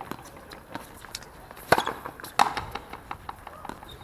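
Frontenis ball being played in a rally: two sharp cracks of racket on ball and ball on the front wall, about two-thirds of a second apart a little before halfway through, with fainter ticks in between.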